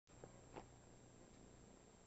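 Near silence: room tone with a faint steady hiss and low hum, and two faint short ticks in the first second.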